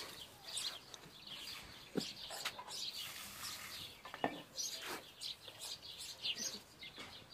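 Small birds chirping and twittering again and again, with a couple of short knocks.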